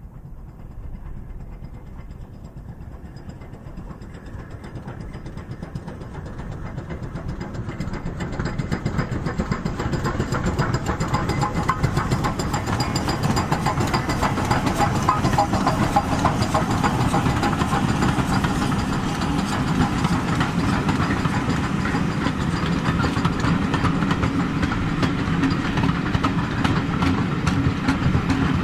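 LMS Stanier 8F 2-8-0 steam locomotive 48624 hauling a train of coaches, its exhaust beats and clanking motion growing louder over the first ten seconds or so as it approaches, then running past steadily.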